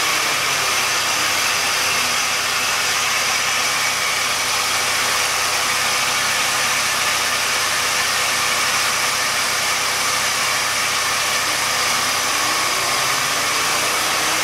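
Jeep Liberty's 3.7-litre V6 idling at operating temperature, heard close up under the open hood: a steady, even running noise that does not change in speed.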